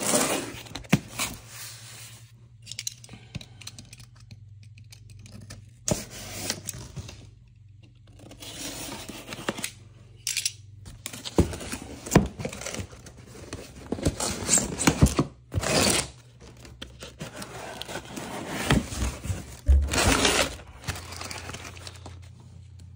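Cardboard shipping box and its packing being torn open and rummaged through: irregular tearing, scraping and rustling, with occasional sharp clicks and knocks as things are handled.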